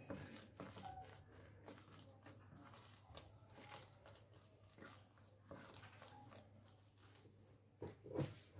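Faint soft squishing and small clicks of a thick ground-lentil and grated-radish batter being mixed by hand in a stainless-steel bowl, over a low steady hum, with two louder knocks near the end.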